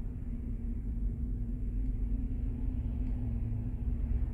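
Steady low rumble with a constant hum from a running vehicle.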